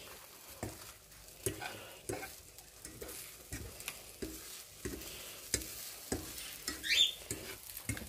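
A metal fork scraping and tapping in a nonstick frying pan, light clicks about every half second to second, while beaten eggs sizzle softly in the pan. A short rising squeak about seven seconds in.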